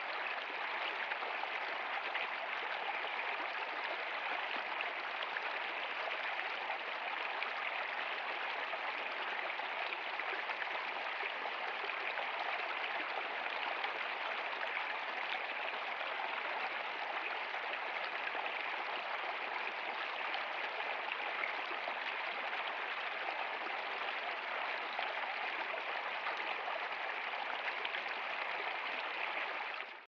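Shallow stream running fast over rocks: a steady, unchanging rush and splash of water.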